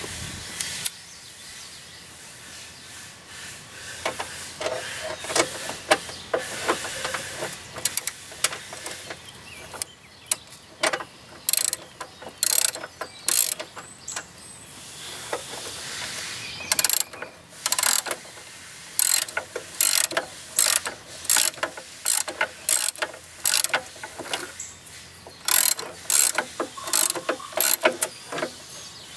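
Hand ratchet wrench clicking in repeated short runs of strokes as fasteners are turned, with the runs coming thicker in the second half.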